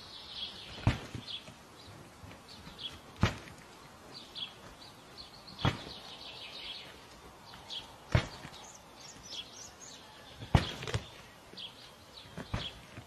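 A ram butting its head against something, a sharp thud about every two and a half seconds, five times, with birds chirping in the background.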